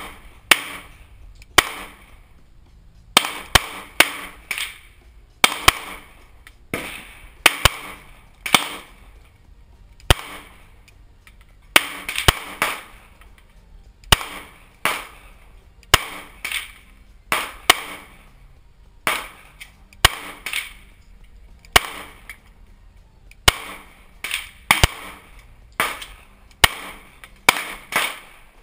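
Semi-automatic pistol fired shot after shot, about one a second with some quick pairs, each crack followed by a short echo.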